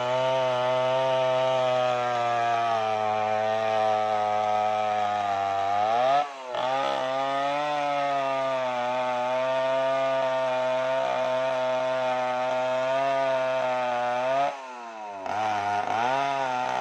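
Stihl 070 two-stroke chainsaw running at full throttle under load, ripping lengthwise into a large sengon log. The engine note holds steady, dips briefly about six seconds in, then drops sharply as the throttle comes off near the end before revving back up.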